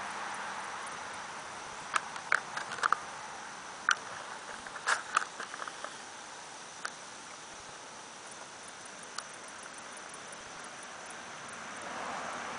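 Outdoor garden ambience: a steady hiss with a faint high, even tone over it, and a scattered run of small sharp clicks and taps about two to five seconds in, with one or two more later.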